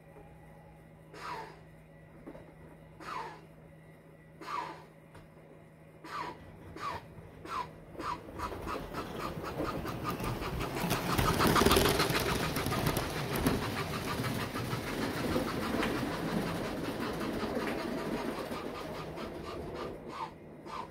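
Bachmann North Pole model steam train running on its track: short chuffing puffs at intervals that come quicker, then the locomotive's wheels and motor clattering on the rails, loudest as it passes close about twelve seconds in, over a faint steady hum.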